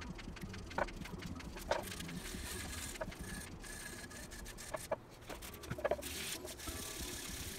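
Hand wet-sanding of an aluminium motorcycle fork slider with 320-grit paper: scratchy rubbing strokes of the abrasive on the metal, with a few short clicks and squeaks.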